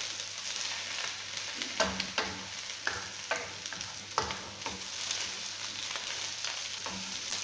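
Sliced potatoes and red onions sizzling in oil in a wok, a steady hiss, while a wooden spatula stirs them, scraping and knocking against the pan at irregular moments.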